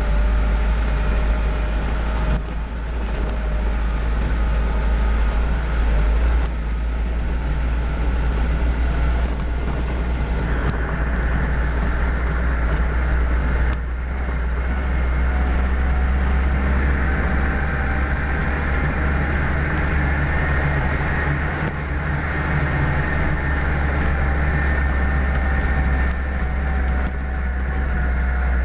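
Motor vehicle engine running steadily with a heavy low rumble; its pitch climbs a little about a third of the way in and again past the middle.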